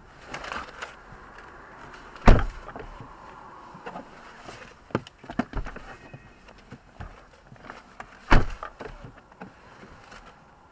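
Scattered clicks and knocks, with two loud thumps, one about two seconds in and one about eight seconds in.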